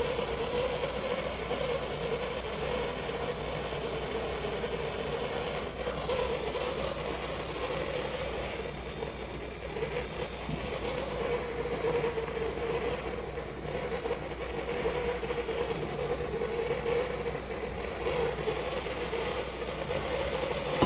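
Gas blowtorch flame burning steadily while heating a fluxed copper pipe fitting for soldering.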